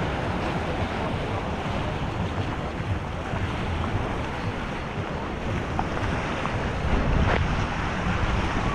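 Sea waves washing on a beach, with wind buffeting the microphone in a low rumble that gusts harder near the end.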